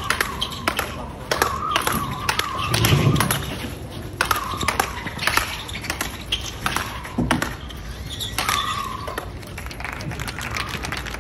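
Speedball rally: sharp smacks of paddles hitting the ball tethered to the central pole, following each other in quick succession, some with a short ringing after them.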